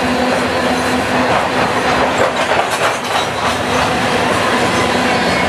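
Loaded covered grain hopper cars of a freight train rolling past: a steady rumble and rattle of steel wheels on rail, with a run of sharp wheel clicks about two to three seconds in.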